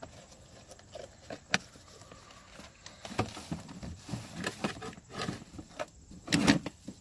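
Tools and a toolbox being handled as a prop wrench is stowed: scattered clicks and knocks, a sharp click about a second and a half in, and the loudest clatter about six seconds in.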